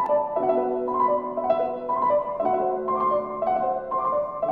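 Background piano music: sustained chords that change about every two seconds, with a melody above them.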